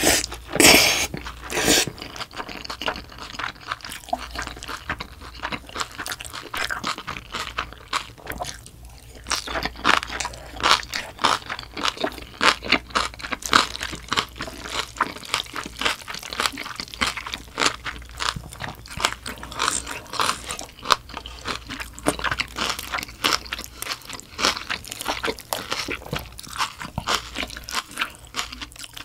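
Person chewing spicy bibim-guksu mixed with young-radish kimchi and chive kimchi: quick, crisp crunching bites throughout, after noodles are slurped into the mouth in the first two seconds.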